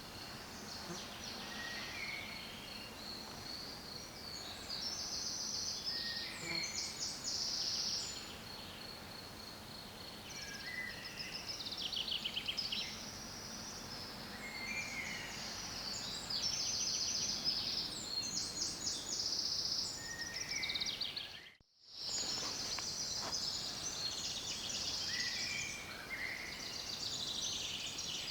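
Several songbirds singing and calling at once, with rapid high trills and chirps over a steady background hiss. The sound drops out for a split second about three quarters of the way through.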